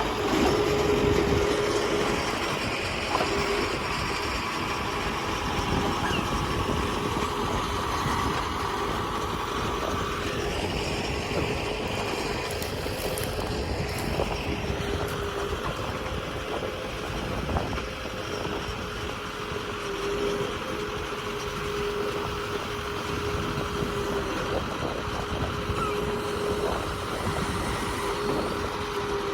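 Excavator engine and hydraulics running steadily as the machine works, with a steady whine above the engine noise.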